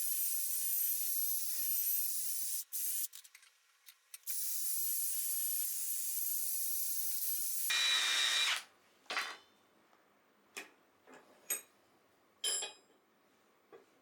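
A metalworking power tool running on scrap iron, a steady high hiss in two runs of about three seconds each with a short break between them. It is followed by a brief louder burst and then a handful of separate sharp clicks and taps.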